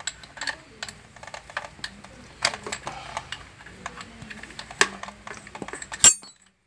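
Light metal clicks and rattles of a bit being fitted into a corded electric drill's chuck and the chuck turned by hand, as the 5 mm bit is changed for an 11 mm one. A few sharper clicks stand out, the loudest about six seconds in.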